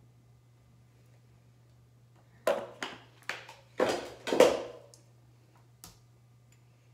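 A quick series of about five hard knocks and clatters as items are handled and set down on a bathroom counter or in a cabinet, then one small click. Under them runs a low steady hum.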